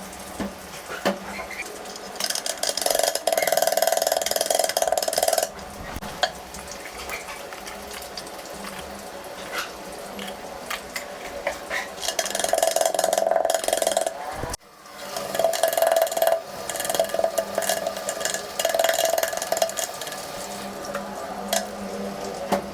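Kitchen cooking sounds: a utensil clattering and scraping against a pan over an irregular sizzling hiss, with a sudden break about two thirds through.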